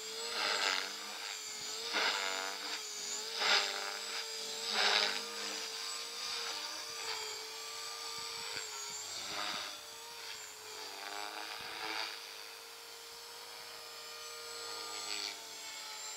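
Electric Thunder Tiger Mini Titan E325 V2 flybarless RC helicopter in flight: a steady, slightly wavering whine from its motor and gearing with the whoosh of the spinning rotor blades. The blade noise swells loudly about every second and a half in the first five seconds, then settles into a steadier, somewhat softer whine.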